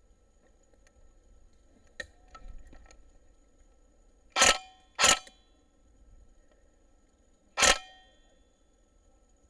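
Three sharp shots from a scoped gun, the first two about half a second apart and the third some two and a half seconds later, each with a brief metallic ring; a faint click comes about two seconds in.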